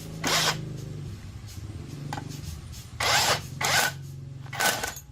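Four or five short rasping strokes of a hand tool, the loudest sounds here, over a steady low hum.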